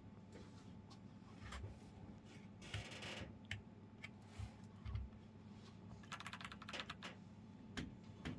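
Keychron V1 mechanical keyboard being typed on: irregular faint key clicks, with a quick run of keystrokes about three seconds in and a longer run about six to seven seconds in.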